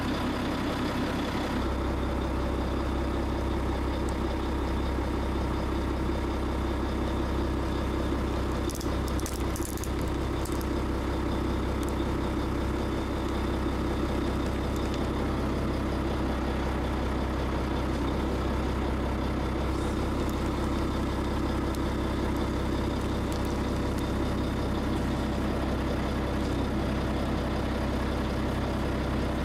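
Heavy machine's engine idling steadily while its large tyre bears down on a toy car. A few sharp cracks or clicks sound about nine to ten seconds in.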